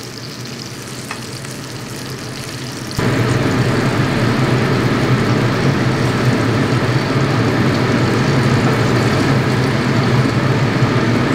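Oil sizzling and crackling in a frying pan as pan-fried chicken cutlets are lifted out with chopsticks. About three seconds in the frying noise jumps suddenly louder and stays steady, with a low hum under it.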